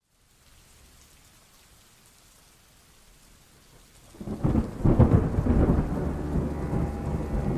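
Thunderstorm: soft steady rain, then about four seconds in a loud rumble of thunder that rolls on.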